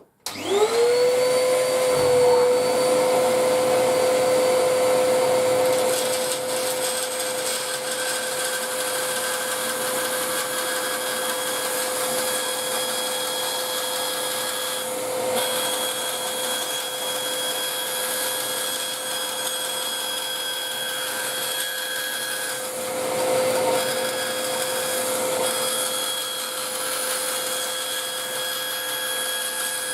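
Bandsaw starting up, its motor whine rising to a steady pitch within about a second, then running steadily while it cuts a guitar fretboard blank to shape, the level shifting a little as the wood is fed through.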